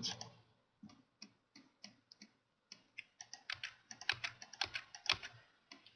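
Computer keyboard keys and mouse buttons clicking in an irregular run, the clicks coming thickest about halfway through.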